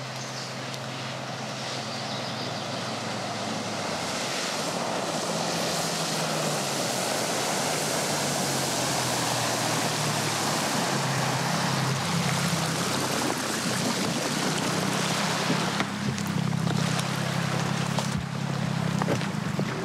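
Motorboat engine running, with water and wind noise, growing steadily louder.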